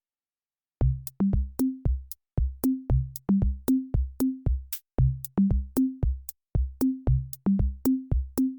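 Background music: after a brief silence, an electronic drum-machine beat with a kick drum, short bass notes and crisp high clicks starts about a second in and keeps a steady rhythm.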